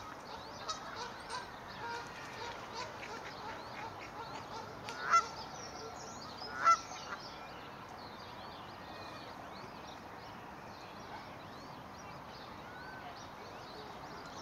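Adult swan calling twice, two short honks about a second and a half apart, over a background of faint high chirps.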